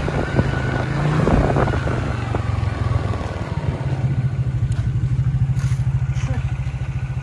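Motorcycle engine running with road noise for the first few seconds, then idling at a standstill with an even, rapid pulse.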